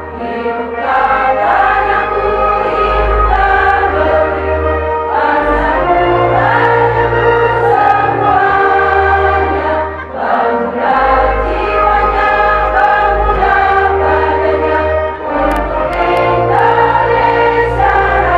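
Women's choir singing over an instrumental accompaniment with a deep bass line, the held notes changing every couple of seconds; the sound dips briefly between phrases about ten seconds in and again around fifteen seconds.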